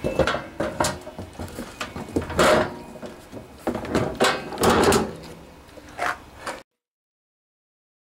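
Hollow plastic fuel tank being set down on a generator's metal frame and shuffled into place by hand: a run of knocks, scrapes and thumps, loudest about two and a half seconds in and again between four and five seconds in. The sound cuts off suddenly about six and a half seconds in.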